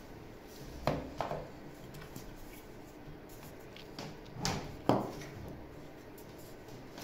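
Two pairs of short plastic knocks and clatters from the yellow plastic motor head of a Kärcher AD 4 Premium ash vacuum being handled during assembly, about a second in and again around four and a half seconds in, the second pair louder.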